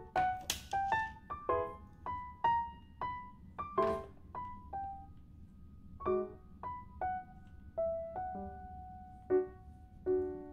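Background music: a light piano melody of single ringing notes. Two brief scraping sounds, about half a second in and about four seconds in, come from the aluminium-and-plastic mop pole sections being handled and fitted together.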